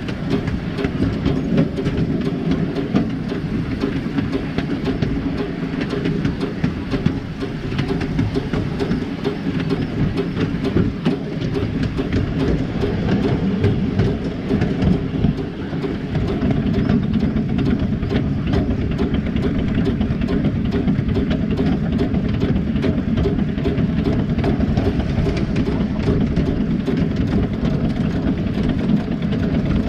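A 7¼-inch gauge miniature steam locomotive running along its track, heard from right behind its chimney: a steady rumble of running noise laced with many small clicks from the wheels on the rails. It grows a little louder about halfway through.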